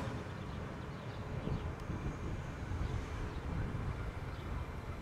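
Faint low rumble of a train on the line, steady, with no clear rhythm.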